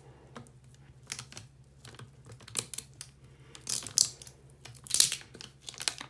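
Thin plastic label being peeled off a plastic water bottle: irregular crinkling and crackling, with a few sharper crackles.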